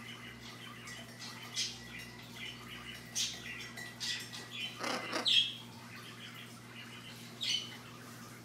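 Scarlet macaw making short, scattered chirps and clicks a second or two apart, the loudest a brief call with a falling pitch about five seconds in.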